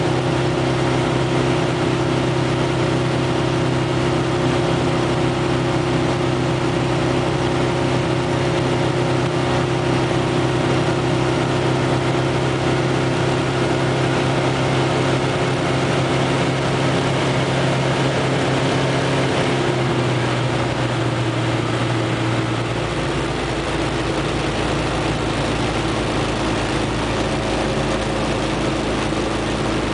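Single-engine propeller aircraft's engine and propeller running steadily in cruise, heard from inside the cockpit. The engine note drops slightly about two-thirds of the way through, as if power is eased back.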